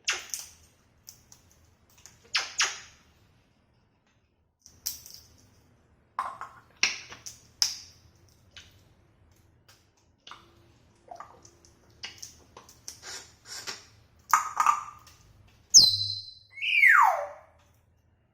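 Congo African grey parrot making a string of short clicks and noisy bursts, then near the end a sharp high squeak followed by one whistle that falls steeply in pitch.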